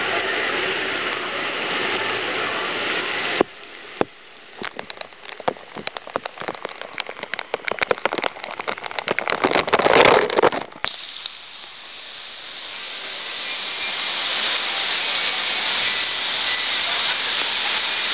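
Steady rush of a pool waterfall. About three seconds in it cuts out abruptly, giving way to irregular crackling and pattering of water striking the microphone, which builds to a loud splash about ten seconds in; then the waterfall's rush slowly swells back.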